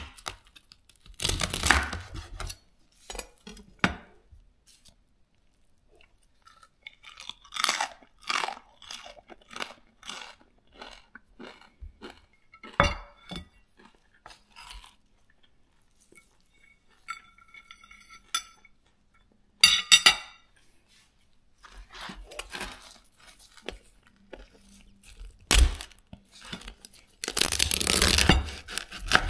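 A knife cutting through the crackled skin of roast pork belly on a wooden cutting board, crunching in bursts, with taps on the board. The longest, densest crunching comes near the end. About two-thirds of the way through there is a short clinking ring.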